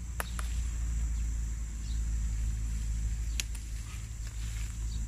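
Steady low rumble of wind and handling on the microphone under a constant high insect drone, with a few sharp clicks: two near the start and two more about three and a half seconds in.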